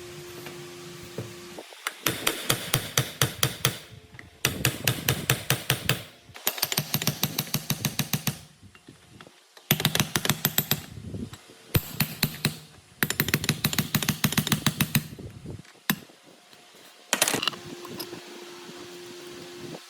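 Rapid tapping of a hammer on metal, about six blows a second, in runs of one to two seconds with short pauses between, then one single louder knock near the end. A faint steady hum sits under the quieter stretches.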